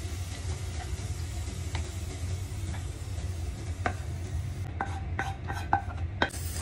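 Wooden spatula scraping stir-fried vegetables out of a nonstick frying pan into a bowl, ending in a quick run of sharp knocks on the pan about five to six seconds in. A steady low hum runs underneath.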